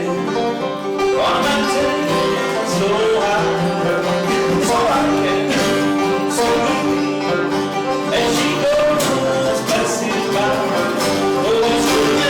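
Banjo and acoustic guitar playing an old-time, bluegrass-style tune with plucked strings.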